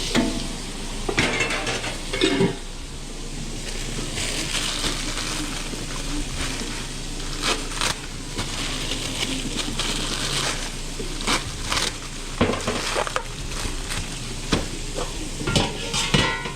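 Sous-vide chicken pieces sizzling as they brown in a hot pan with a little fat, under frequent clatter and knocks of pans and utensils being stirred and handled.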